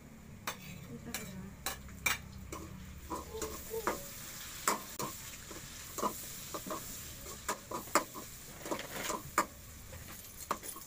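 Sliced tomatoes sizzling as they are stirred into a pan of frying pork, garlic and onion, a metal utensil scraping and tapping against the pan at irregular intervals.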